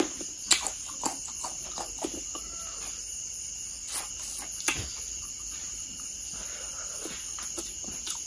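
Steady high-pitched chirring of a cricket and insect chorus, broken by a few short sharp clicks and taps.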